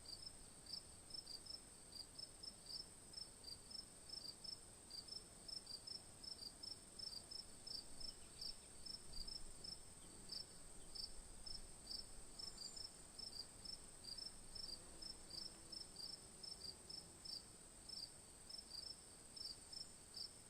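Crickets chirping faintly: short, high chirps repeating several times a second, often in pairs, over a steady high-pitched tone.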